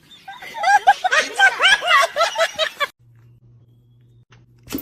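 High-pitched laughter in quick repeated bursts that cuts off abruptly about three seconds in, leaving a faint low hum and one short knock near the end.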